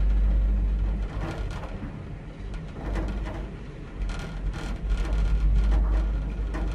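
Lift car travelling down its shaft: a steady low rumble with faint rattles and clicks. The rumble is heavier in the first second, eases off, then swells again from about four seconds in.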